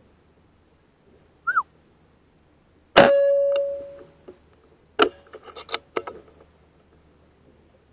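A short falling squeak, then a sharp strike that rings for about a second before dying away, followed a couple of seconds later by a quick run of lighter knocks and clatter.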